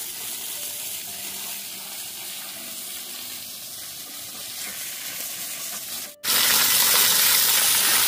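A steady hissing noise. It breaks off abruptly about six seconds in and comes back louder and brighter.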